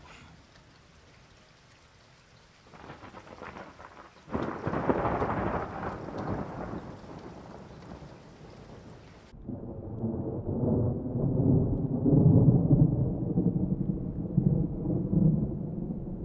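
Light rain falling, then thunder from a close lightning strike: a crackle about three seconds in, a sharp crack about a second later that rumbles away. After an abrupt change in the sound, a second long, low rumble of thunder follows, loudest about twelve seconds in.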